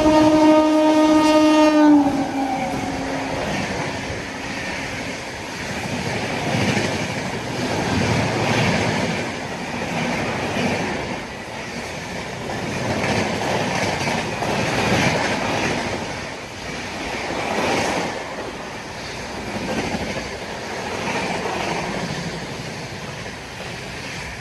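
A train horn blows for about two seconds, sagging slightly in pitch as it ends. Then a train runs along the rails, its rumble and wheel clatter swelling and fading every couple of seconds.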